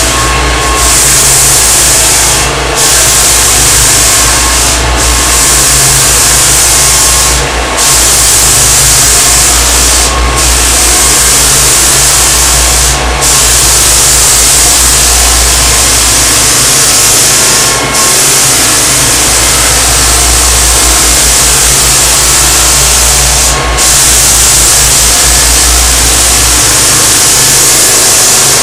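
Drum floor sander making a coarse 60-grit first cut across a maple floor, together with a dust-containment vacuum running. Loud and steady, with brief dips every few seconds.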